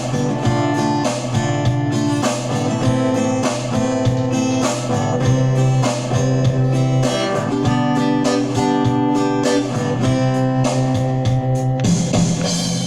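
Strummed acoustic guitar playing an instrumental passage of a song, with steady rhythmic strokes across held chords.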